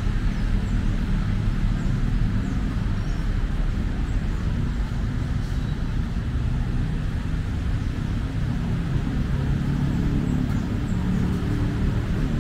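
Steady low rumble of motor vehicle traffic, engines running close by.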